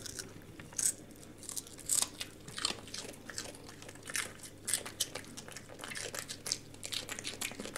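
A Yorkshire terrier crunching and chewing pieces of raw kohlrabi, a rapid, irregular series of short crunches.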